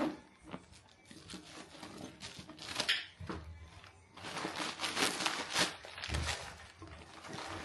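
Rustling and crinkling of packaging as a handbag is unwrapped and handled, in irregular strokes that grow louder and busier about halfway through.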